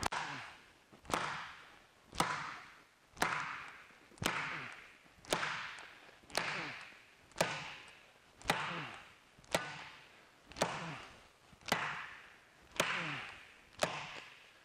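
Steel bossing hammer striking a thin aluminium sheet panel on a leather sandbag, steady blows about once a second, each a sharp crack that fades over about half a second. The hammering is a torture test of a pulsed-TIG butt weld in the 0.060 aluminium.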